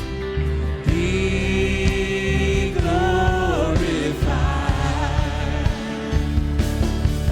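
Church worship music: a singer's voice holding long, sliding notes over sustained instrumental backing.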